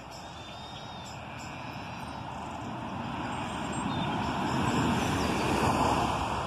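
A passing vehicle, a broad rushing rumble that grows steadily louder to a peak about five to six seconds in and then begins to fade, with faint bird chirps early on.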